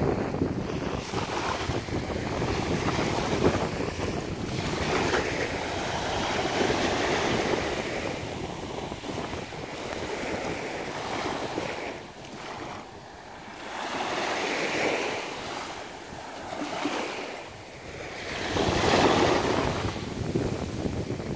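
Small waves breaking and washing up a sandy beach, swelling and fading every few seconds, with wind buffeting the microphone. The loudest surge comes near the end.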